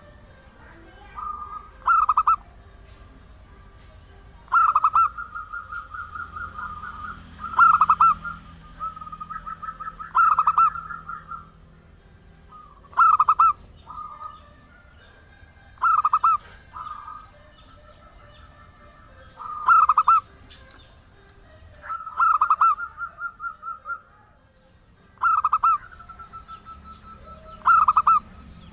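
Female zebra dove (perkutut) cooing: short bouts of rapid pulsed coos, repeated every two to four seconds, some trailing off into a longer run of fast, softer notes. This is the call of a female calling to males.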